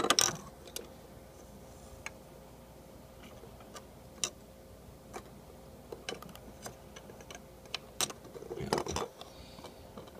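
Small plastic model airplane parts clicking and tapping as the wings and stabilizer of a 1:200 scale Boeing 737-700 model are handled and pushed into place by hand. The clicks come singly at irregular intervals, with a busier run of handling noise about nine seconds in.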